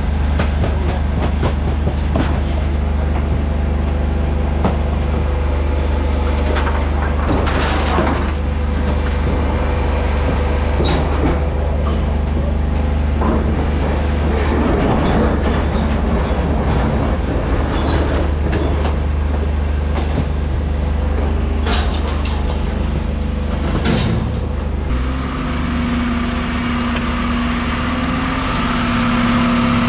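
Refuse truck's rear bin lift and compactor running on hydraulic power: a steady engine and hydraulic drone, with clanks and rattles as a wheelie bin is lifted and emptied into the hopper. Near the end the drone drops to a different steady hum.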